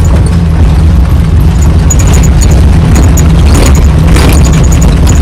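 Maruti Suzuki Gypsy engine running as the 4x4 climbs a rough off-road track, heard from inside the cabin as a loud, steady low rumble. Faint light clicks sit on top of it.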